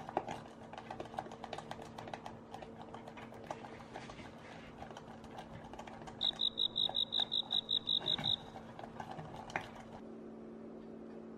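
A rubber spatula stirring and scraping thick lemon curd in a stainless steel saucepan, with many small taps and clicks over a steady low hum. About six seconds in, a quick run of about a dozen high beeps lasts two seconds. The stirring stops near the end.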